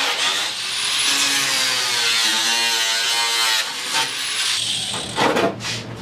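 Electric angle grinder with a cutoff wheel cutting through a plastic ATV fender, its motor pitch wavering with the load and rising in a whine as the wheel frees up. The grinding stops about four seconds in, and a few knocks and scrapes of the plastic being handled follow near the end.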